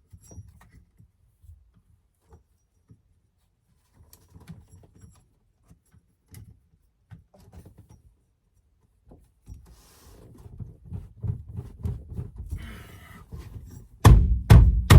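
Faint clicks and rattles of small parts and tools being handled at a car's steering column, growing busier toward the end, then a few loud, heavy thumps about a second before the end.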